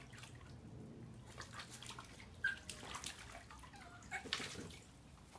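Small dogs splashing and scrabbling in a shallow plastic tub of water: scattered, irregular splashes over a low background hum, with a few brief high squeaks among them.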